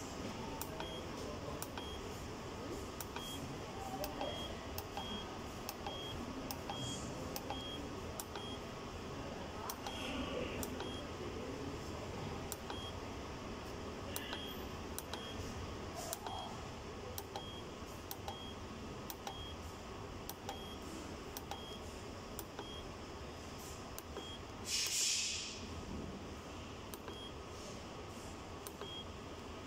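Control-panel keypad of a biosafety cabinet beeping with each button press: many short high beeps, each with a faint click, about one every half second to second, over the steady hum of the cabinet's running blower. A brief burst of hiss near the end is the loudest sound.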